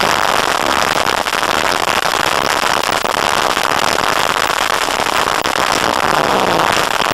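Dirt bike engine running under load while riding a dusty track, picked up by an onboard camera microphone as a dense, steady, distorted crackle with the revs faintly rising and falling.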